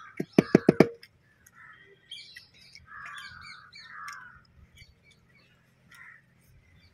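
About six quick metallic clicks in the first second as a small steel plate is knocked against the rice and banana leaf to tip out greens. Crows cawing and small birds chirping follow.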